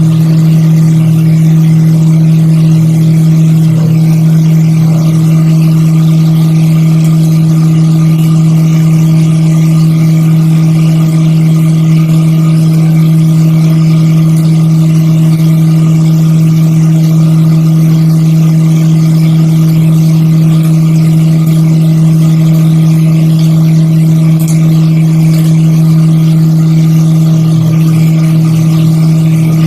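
CNC milling machine cutting acrylic and Corian harmonica combs. Its spindle gives a loud, steady hum that holds one pitch.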